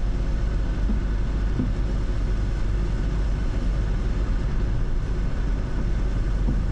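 A car driving at a steady speed: a constant low road and tyre rumble with a wash of higher noise, unchanging throughout.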